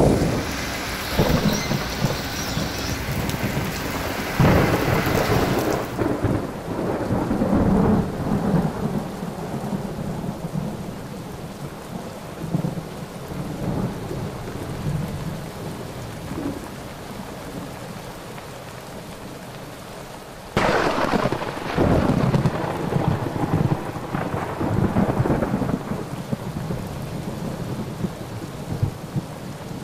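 Heavy rain pouring down with rumbles of thunder. The sound drops quieter about six seconds in and turns abruptly louder again about twenty seconds in.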